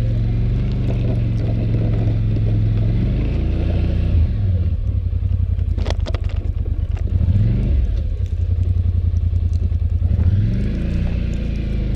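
Polaris Sportsman 850 ATV's twin-cylinder engine running under load while plowing snow. The engine revs up and drops back several times as the throttle is worked, with a brief clatter about six seconds in.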